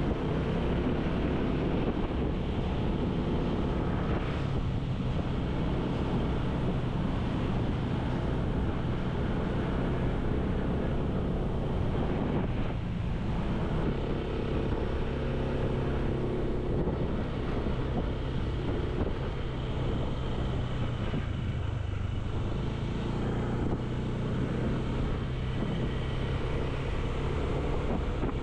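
A vehicle travelling along a road: its engine runs steadily under continuous road noise, with wind rushing over the microphone.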